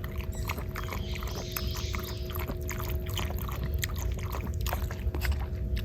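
Dog lapping water: a quick, irregular run of small wet clicks over a low steady rumble.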